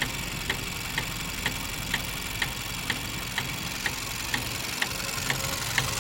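Vauxhall Astra 1.4 SRi automatic running steadily, with a sharp rhythmic tick about twice a second over the engine hum: the unexplained clicking and ticking noise the car has developed.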